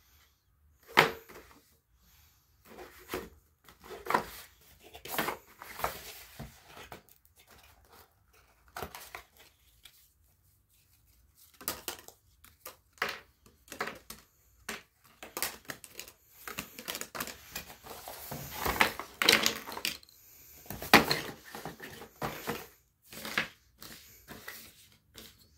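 Handling of a cardboard toy box and its contents: irregular taps, clicks and rustles as the box is opened, picture cards are handled and flat tangram pieces are set down and slid across a tabletop. There is a quiet pause about a third of the way in.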